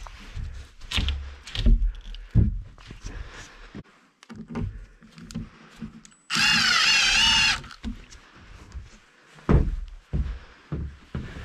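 Wooden boards knocking and thudding against floor joists as they are handled into place, with a loud, wavering whine from a power tool running for just over a second about six seconds in.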